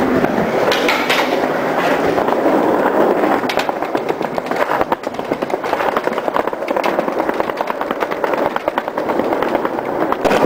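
Skateboard wheels rolling over a city sidewalk: a loud, steady rumble crowded with rapid little clicks from the pavement.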